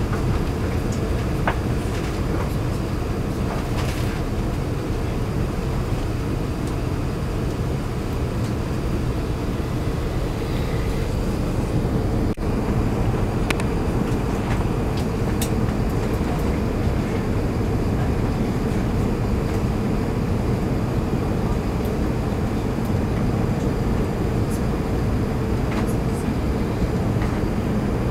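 Steady cabin roar inside an Airbus A380 climbing out after takeoff: engine and airflow noise, with a few faint clicks and rattles from the cabin.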